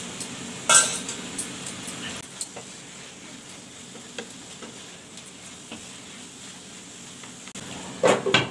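Paneer and green peas frying in masala in a nonstick kadhai, a low steady sizzle, with a wooden spatula scraping and knocking against the pan. Near the end a glass lid is set down on the pan with a couple of loud clinks.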